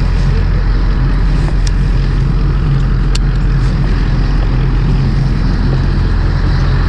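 Fishing boat's engine running steadily with a deep, even rumble; two faint ticks sound over it a little way in.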